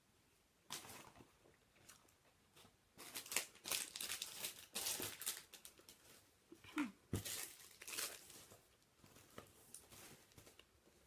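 Packaging crinkling and rustling in irregular bursts, densest in the middle, with a sharp click about seven seconds in.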